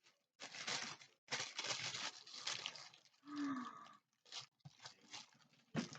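Tissue paper crinkling and tearing in several bursts as it is pulled off a wrapped glass jar, with a brief low hum about halfway through, then a few short crackles near the end.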